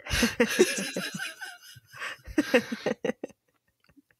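A woman laughing for about three seconds, then near silence.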